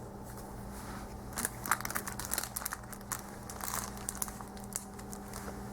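Paper or plastic packaging being handled close up: scattered crinkles and rustles, busiest in the middle, over a steady low hum.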